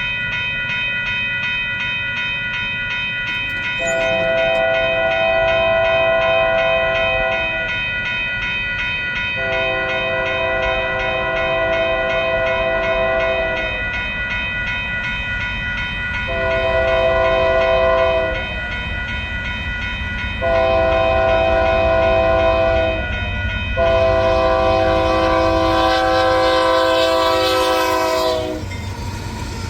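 Diesel freight locomotive's multi-chime air horn blowing five blasts, long, long, short, long, long: the grade-crossing signal as the train approaches. A steady high-pitched ringing carries on underneath throughout.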